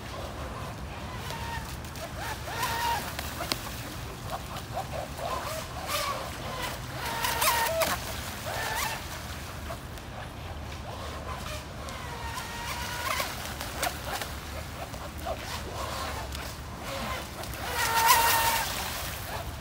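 Radio-controlled speedboat running on a pond: a high-pitched motor note rising and falling in pitch with the throttle, with the hiss of water spray, coming and going as the boat laps and loudest as it passes close near the end.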